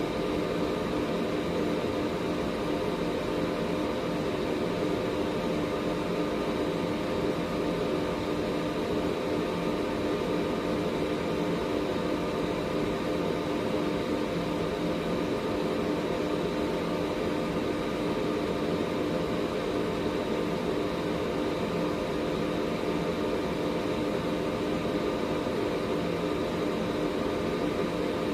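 Air purifier running steadily: an even fan whoosh with a constant motor hum underneath.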